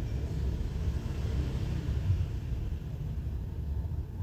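Low, steady rumble of background noise, with no distinct clicks or knocks.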